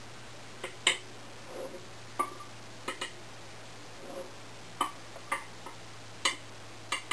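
Metal measuring cup clinking against a glass flour jar and a bread machine pan as flour is scooped and tipped in: about ten sharp, irregular clinks, with a couple of soft rustles of pouring flour between them.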